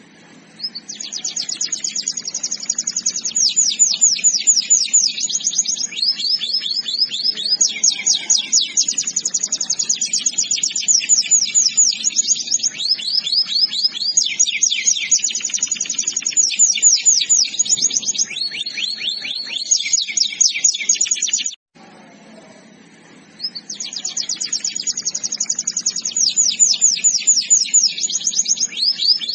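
Canary singing a long, continuous song of rapid high trills and rolling runs of repeated notes. It starts about a second in, breaks off abruptly about two-thirds of the way through, and resumes about two seconds later.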